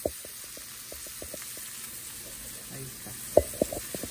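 Chopped onion, tomato and cilantro frying in hot oil in a nonstick pan, sizzling with many small crackling pops. A few sharp knocks stand out, the loudest about three and a half seconds in.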